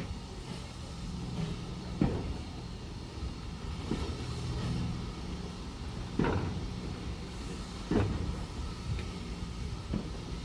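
Railway passenger coaches rolling slowly past, the wheels knocking over rail joints about every two seconds over a low steady rumble.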